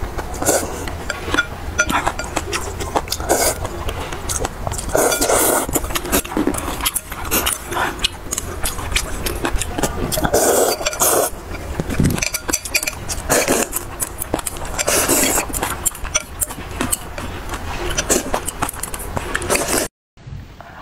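Noodles in broth being slurped in repeated long draws, with chopsticks clicking and clinking against a glass bowl.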